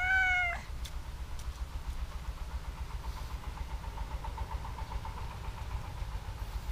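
A domestic cat's long, drawn-out meow that ends about half a second in. After it comes a steady low rumble, with a faint, fast pulsing hum in the second half.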